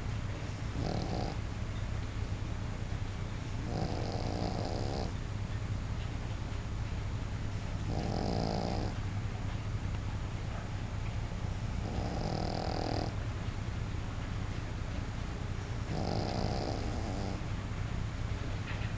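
Sleeping dog snoring: five slow, regular snores, about one every four seconds, over a steady low hum.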